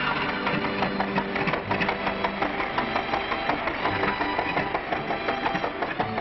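A fast, even clatter of many rapid clicks with a few held tones underneath, on an old, hissy film soundtrack.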